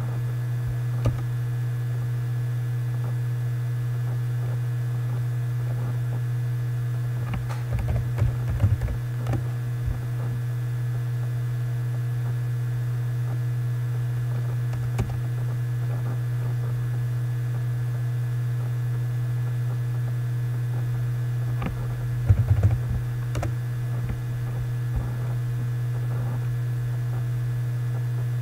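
Computer keyboard typing in two short bursts, about eight seconds in and again about twenty-two seconds in, with a few single clicks between, over a steady low electrical hum.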